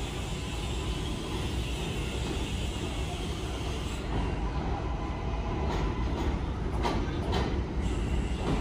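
New York City subway L train running on the rails with a steady low rumble. From about halfway, sharp wheel clacks join in, getting louder toward the end.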